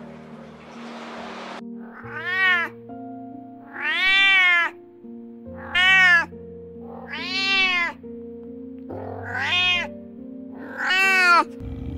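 Cat meowing six times, spaced over several seconds. Each call rises and then falls in pitch, with background music under it.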